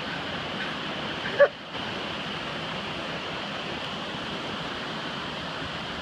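Steady rushing water of river rapids, with one brief loud sound about a second and a half in.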